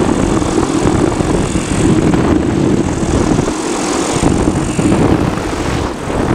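Flexwing microlight trike gliding with its engine throttled back to idle for a practice engine failure, the engine ticking over and the pusher propeller turning, under a steady rush of air past the microphone.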